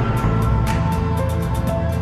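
Instrumental background music: quick, even high percussion ticks over held bass and melody notes.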